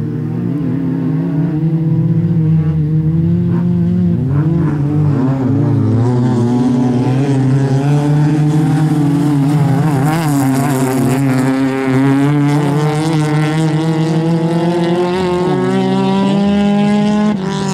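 Racing car engines under hard acceleration on a dirt autocross track. The pitch climbs and falls back repeatedly as the driver revs and changes gear, then rises steadily over the last few seconds. The sound breaks off suddenly near the end.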